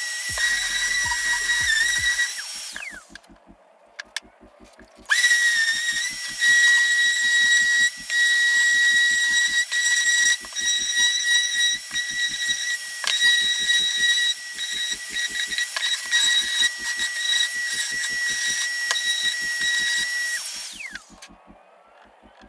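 Electric random orbital sander running with a steady high whine as it sands an epoxy-and-wood board. It is switched off about three seconds in and winds down, starts again about two seconds later, and winds down once more near the end.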